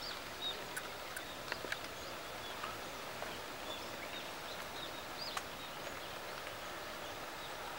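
Birds chirping in short, scattered calls over a steady outdoor hiss, with a few sharp clicks in the first two seconds and another about five seconds in.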